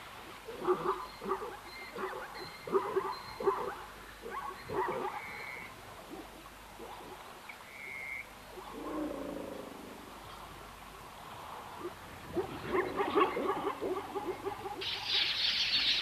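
Short, irregular animal calls at a waterhole, with a lone falling call in the middle. Near the end a flock of red-billed quelea arrives, and a dense high chattering of many small birds takes over.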